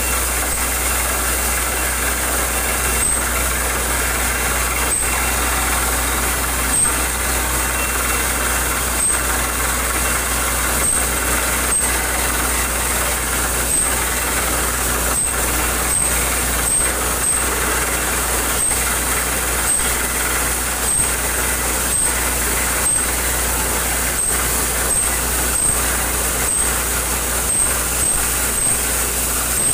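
Borewell drilling rig at work on compressed air: a loud, steady machine noise with sharp knocks every second or two.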